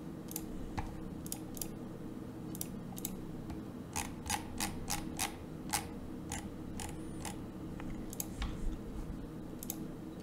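Computer mouse clicking: scattered single clicks, with a quicker run of clicks about four to six seconds in, over a steady low hum.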